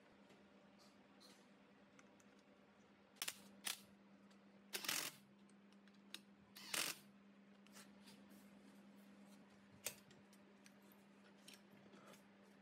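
Light clinks and knocks of a cast-metal electric motor end bell being handled and seated onto the rotor shaft and bearing, a handful of separate strokes with the loudest near the middle, over a faint steady hum.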